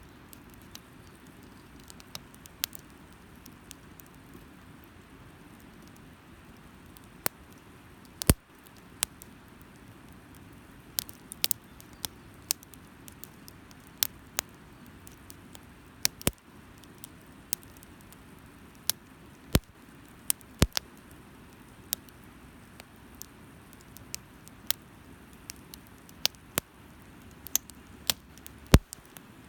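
Wood fire burning, crackling with sharp, irregular pops, a few of them louder than the rest, over a steady low hiss.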